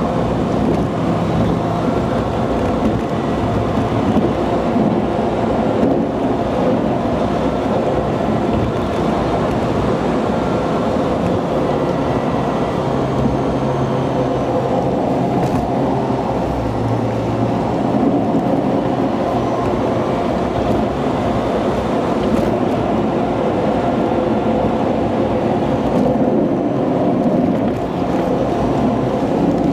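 Car engine and tyre noise heard from inside a car driving a winding mountain road, steady throughout, with the engine note stepping up and down now and then. The recording is played back sped up.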